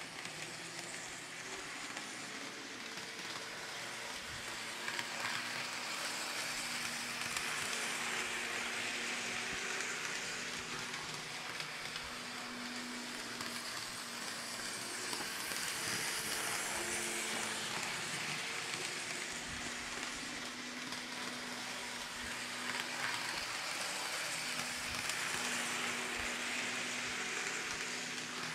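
N scale model train running: the Kato GE ES44AC locomotive's small electric motor humming and the coal hoppers' metal wheels rolling on the rails in a steady hiss with a few small clicks, swelling and easing a little as the train moves around the layout.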